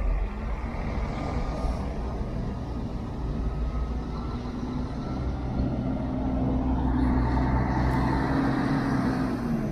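Diesel coach engines running at low speed: a steady low rumble, with one coach's engine growing louder from about halfway as it drives up and turns close by, then easing off near the end.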